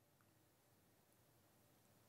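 Near silence: only a faint, even background hiss.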